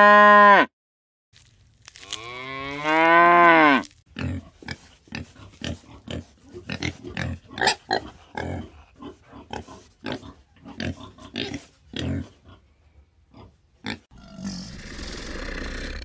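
Farm animal calls: the last half-second of a cow's moo, cut off sharply, then a second loud moo-like bellow about two seconds in that falls in pitch as it ends. Then about ten seconds of short, irregular grunts, several a second, and a steady rough noise near the end.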